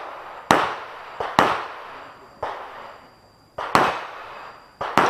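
Handgun shots fired in a rapid string during a practical-shooting (IPSC) course of fire, about nine in all, several in quick pairs. Each shot has a short echoing tail, and there is a break of about a second midway.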